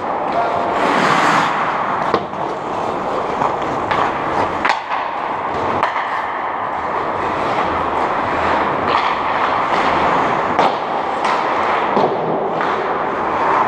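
Ice hockey play echoing in an indoor rink: skate blades scraping and hissing on the ice, with sharp clacks of sticks and puck scattered throughout. A louder, longer skate scrape comes about a second in.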